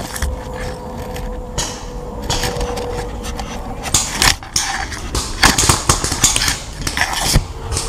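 Leaves and twigs brushing and rustling against a helmet-mounted camera as the player shifts in the undergrowth: irregular scrapes and crackles, some close and loud.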